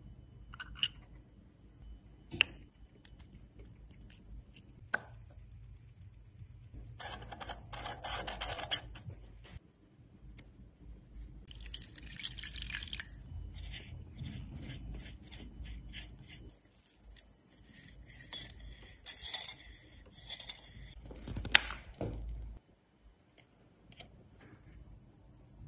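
Watch-servicing sounds from a Rolex Datejust: small sharp clicks and taps of metal tools on the case and movement, with a few seconds of liquid poured over the loose movement parts in a glass dish about twelve seconds in.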